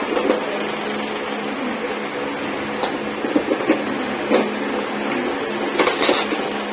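Steady mechanical hum with a constant low tone, with scattered short rustles and crackles from about halfway through.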